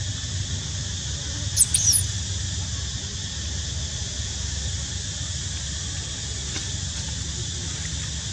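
Newborn baby macaque squeaking: a few short, high-pitched squeals that glide up and down about two seconds in, over a steady low rumble and a high hiss.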